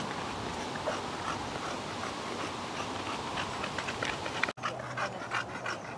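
A bulldog panting in quick, noisy breaths over a steady background hiss, with a brief break in the sound about four and a half seconds in.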